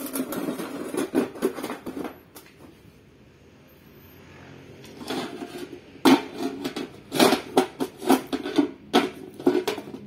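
Metal clattering and knocking of a bare Suzuki RC engine crankcase and crankshaft being handled and set in position, in two stretches: through the first two seconds, then again from about five seconds in until near the end.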